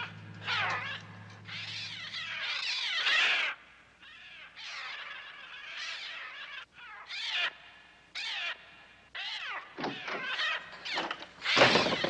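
Shrill, screeching bird cries from a flock, one cry after another, each sliding up and down in pitch, with the loudest cry near the end.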